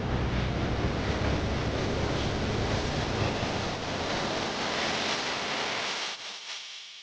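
Wind buffeting the microphone: a steady rushing noise with heavy low rumble that fades away near the end.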